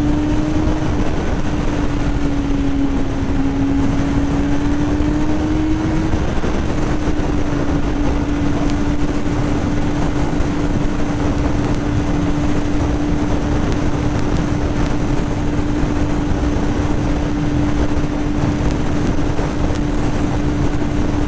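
2005 Yamaha YZF-R6's inline-four engine holding a steady highway cruise, a high, even engine note that sags slightly a couple of seconds in, then climbs back and holds level, under heavy wind and road rush.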